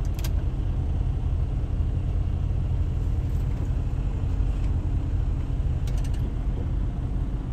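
Steady low rumble of semi-truck diesel engines, heard from inside a truck cab.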